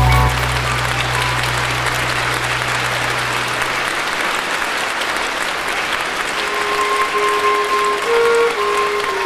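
Audience applauding, while the last low chord of a song fades out over the first few seconds. About six seconds in, a slow instrumental melody of held notes from the next piece begins over the clapping.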